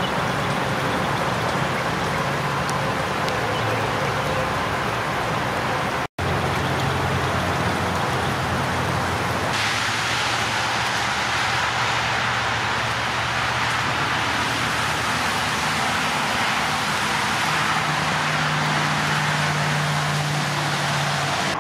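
Steady rain falling, picked up through a plastic bag over the microphone. After a brief dropout about six seconds in, this gives way to traffic on a rain-soaked highway: the steady hiss of car tyres on the wet road mixed with the rain.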